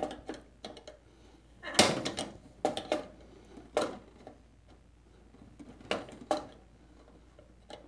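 Needle-nose pliers scraping and clicking against a metal piece inside a drilled-out lock hole in a vending machine's metal cabinet, trying to grip and twist it out: about six short, sharp metallic clicks and scrapes, spaced unevenly.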